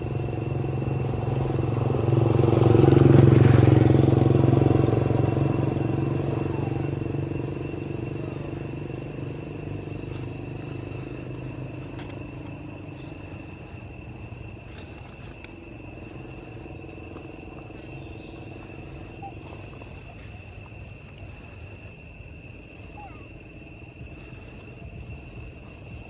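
A motor vehicle's engine passing by: it grows louder to a peak about three seconds in, then fades slowly away.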